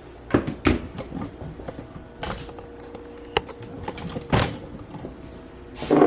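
Objects being handled and set down on a kitchen counter: two sharp knocks near the start, then a few short rustles, over a faint steady hum.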